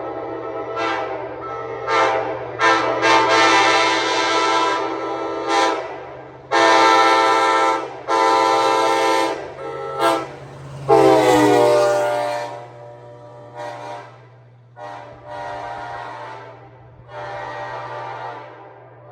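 Nathan K5LA five-chime locomotive air horn sounding a string of blasts, short toots mixed with long held chords. One blast sags in pitch as it dies away about eleven seconds in, and the last few blasts are quieter.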